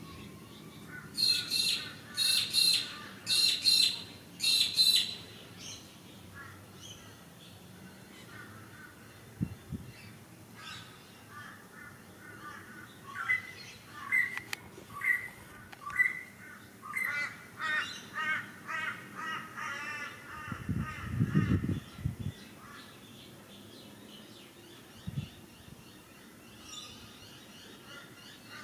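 Crow cawing four times in quick succession near the start, then a longer run of shorter, quieter calls in the middle. A brief low rumble comes about three-quarters of the way through.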